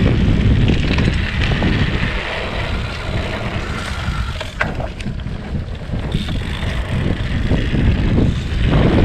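Wind buffeting the microphone of a camera carried on a moving bicycle, a steady low rumble with gusts, with a couple of sharp clicks about halfway through.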